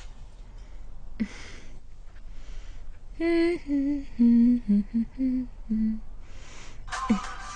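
A woman humming a short tune of a few held notes, the melody stepping downward, with plastic shopping bags rustling just before and after it. Music comes in near the end.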